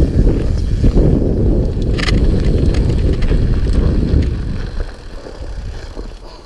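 Mountain bike riding fast down a rough forest trail: a dense rumble of tyres over rocks and roots, with wind buffeting the microphone and a brief rattle about two seconds in. The noise drops away about five seconds in as the bike slows.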